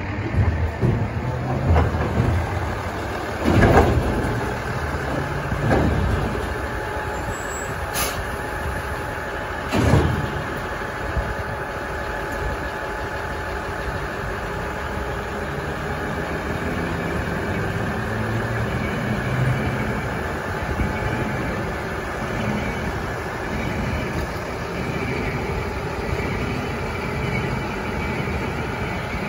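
Diesel railcar's engine idling steadily, with several heavy metallic clunks in the first ten seconds, the loudest about three and a half seconds in.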